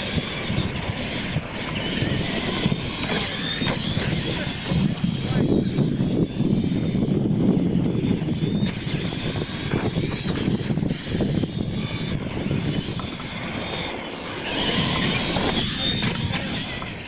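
Radio-controlled monster trucks racing on a dirt track, their electric drive motors and gears whining up and down in pitch as they speed up and slow for the turns.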